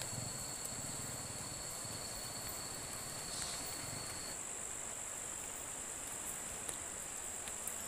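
Insects trilling steadily in a high band over the even rush of a fast-flowing river. A second, thinner insect tone stops about four seconds in.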